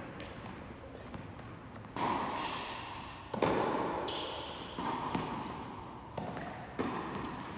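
Tennis ball being hit with rackets and bouncing on an indoor hard court during a rally: a sharp pop every second or so, each followed by a long echo in the big hall.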